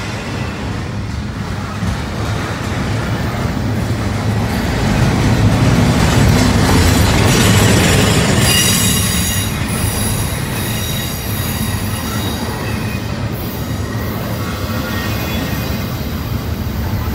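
Double-stack intermodal freight train's well cars rolling past close by: a steady rumble of steel wheels on the rails. A high-pitched wheel squeal comes in about halfway through.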